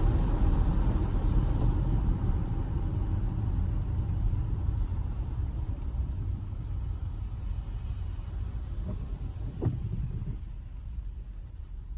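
Road noise inside the cabin of a 2023 Tesla Model Y, an electric car: a steady low rumble of tyres on a wet road that slowly gets quieter as the car slows. A brief tone rises and falls just before the end.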